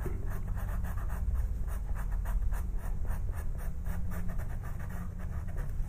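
Pastel pencil scratching across textured pastel paper in quick, short, repeated strokes, several a second.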